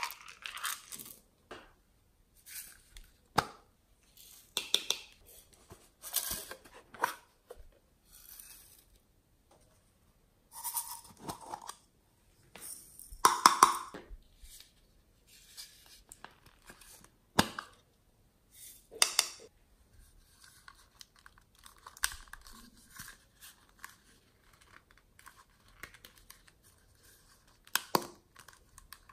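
Small plastic containers being handled and tipped out, with glitter, sequins and small plastic pearls spilling into a glass tray: irregular rustles, rattles and sharp clicks with short pauses between, the loudest burst about halfway through.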